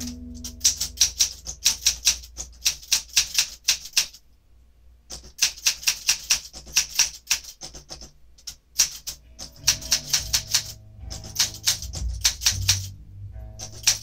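Typing on a 1968 Olympia SM8 manual portable typewriter: sharp typebar clacks, several a second, in bursts with short pauses, the longest about four seconds in. A carriage return comes at the start.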